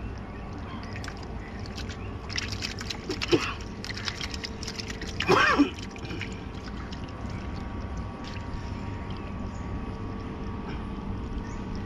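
Water sloshing and splashing as a fish trap is lifted out of the water beside a small boat, with a cluster of splashes and knocks between about two and five seconds in.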